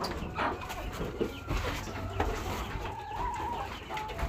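Free-range chickens clucking, with short calls from several birds overlapping, and a few knocks among them.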